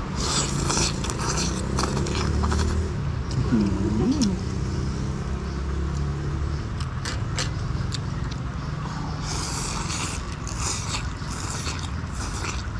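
A person slurping boat noodles and broth from a bowl, in a noisy spell just after the start and another after about nine seconds, with short sucking and chewing noises between. A steady low rumble runs underneath.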